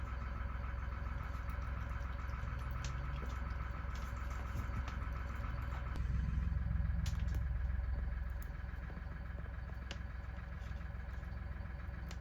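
A vehicle engine running steadily at idle, swelling a little louder for about two seconds in the middle, with a few faint clicks.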